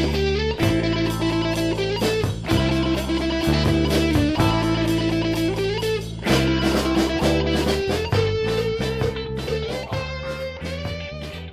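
Background music: a guitar-led instrumental with a melody line over steady bass notes and a beat, getting quieter toward the end.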